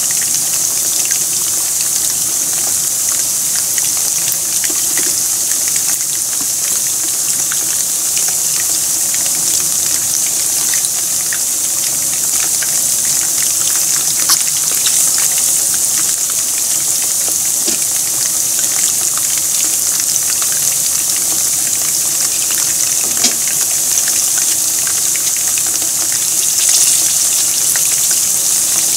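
Pieces of battered food deep-frying in a pan of hot oil: a steady, dense sizzle full of small crackles and pops.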